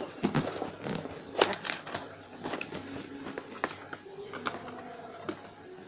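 Cardboard packaging box handled and opened by hand: irregular clicks, taps and rustles of the cardboard flaps and insert, with a few sharper knocks in the first two seconds.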